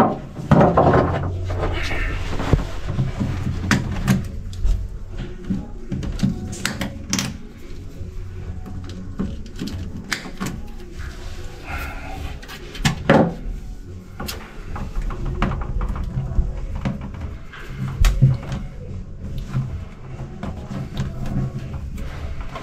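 Scattered clicks, knocks and rustles of hands working electrical cables and fittings along a boat's cabin wall, over a steady low hum.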